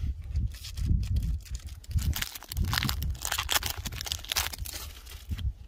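Foil Pokémon booster pack wrapper being torn open and crinkled in the hands, a dense run of crackles thickest from about two seconds in until near the end, over a low rumble.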